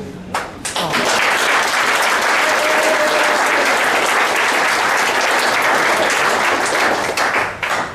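Audience applauding, starting about a second in and fading just before the end.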